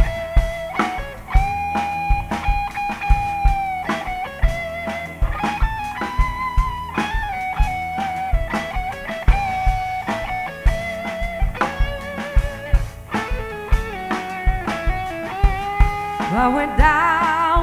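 Electric guitar solo on a white Stratocaster-style guitar: long, bent notes held with vibrato in a slow blues-rock groove, over a live band with drums.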